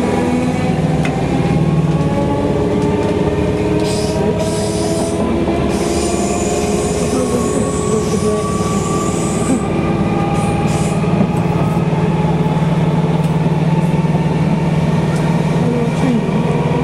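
Class 313 electric multiple unit heard from inside the carriage: its traction motors whine in several tones that rise slowly as the train gathers speed, over the rumble of wheels on the track. A high-pitched sound joins in for about five seconds near the middle.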